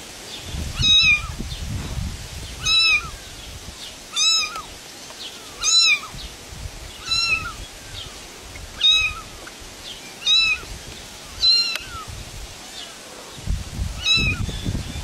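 A kitten mewing again and again, about one short high mew every second and a half, each rising then falling in pitch. A low rumble comes in near the end.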